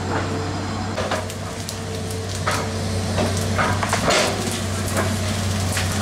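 Sticks, vines and undergrowth crackling and snapping in several sharp strokes as brush is pulled apart and cleared by hand, over a steady low hum.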